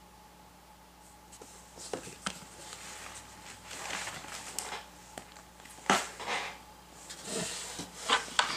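Scattered light clicks, knocks and scratchy swishes of painting work: a brush working paint on a board and the board being handled. The loudest knock comes about six seconds in, and the handling grows busier near the end as the board is shifted.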